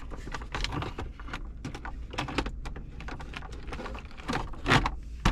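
Irregular plastic clicks and knocks from the trim panel around a 2012 Toyota Camry's gear shifter being handled and worked loose, with a louder knock near the end, over a low steady hum.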